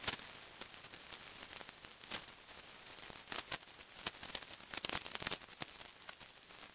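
Gear and tent fabric rustling as a camper handles his kit inside the tent while packing up, with irregular light clicks and knocks throughout.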